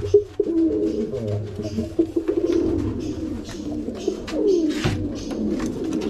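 Domestic pigeons cooing, a low wavering coo that keeps going, with scattered sharp clicks throughout.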